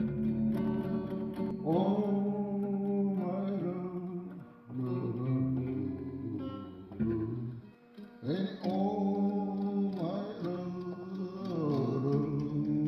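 Background music: a sung melody with guitar accompaniment.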